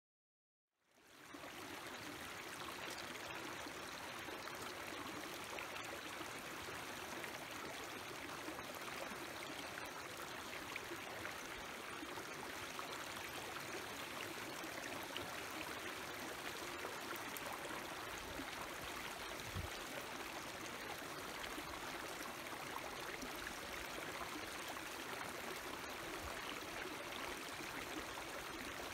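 Mountain stream running over rocks: a steady rush of water that fades in about a second in.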